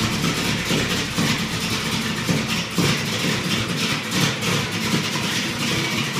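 Shelby GT500's V8 engine idling.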